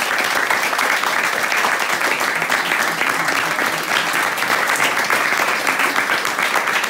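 A small group of people applauding steadily, with some voices mixed in under the clapping.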